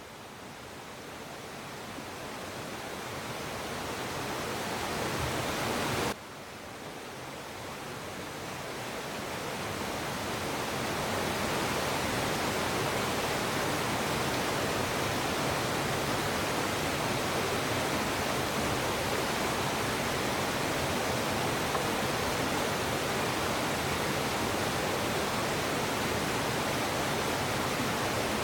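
Steady rushing water of a stream or small falls, an even hiss with no distinct events. About six seconds in it cuts off suddenly and then fades back in over several seconds.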